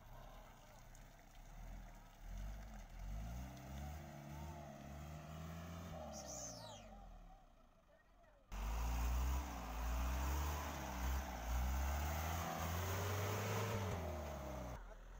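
Light truck's engine revving up and easing off again and again as the loaded truck, bogged down in deep mud, strains to pull free. It is louder from about halfway through.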